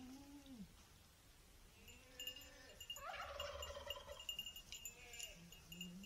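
Boer goats bleating: a series of drawn-out calls that rise and fall in pitch, the loudest and harshest about three seconds in.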